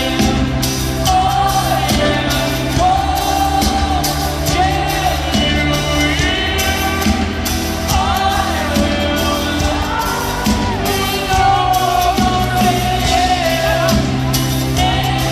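Live band music with a male lead vocalist singing over sustained bass notes and steady drum hits, heard in a large reverberant arena.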